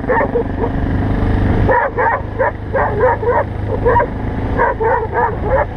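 Dog barking in quick runs of short barks over the steady running of a BMW 650 GS single-cylinder motorcycle engine.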